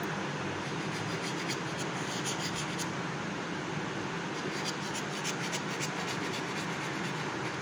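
Kitchen knife tip scoring slits through thin rolled-out paratha dough on a marble counter, making short scratchy strokes in two spells, over a steady background hiss.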